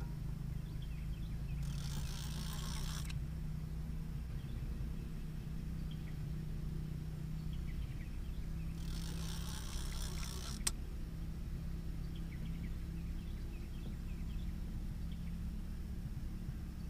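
Fishing reel drag buzzing twice as a hooked catfish pulls line off, each run lasting about a second and a half, with a sharp click just after the second run and a low steady hum under it all.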